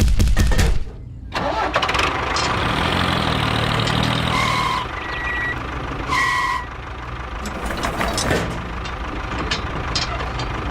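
Engine cranking with rapid even clicks, then catching and running steadily. Two short beeps come in the middle.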